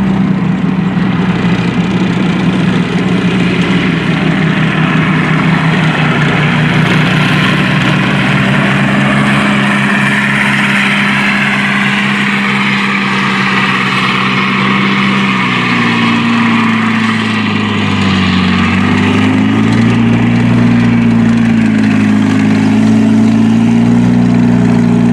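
Tank engines running: an M24 Chaffee, powered by twin Cadillac V8s, drives with a steady engine note and a wavering higher squeal. About fifteen seconds in, a nearer M4 Sherman's engine takes over, its pitch rising and falling as it moves.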